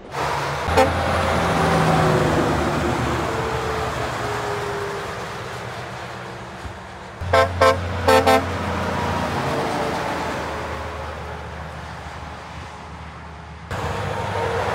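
Heavy trucks passing on a highway, a steady rush of tyre and engine noise. About seven seconds in, a truck's air horn gives a quick run of short, loud toots.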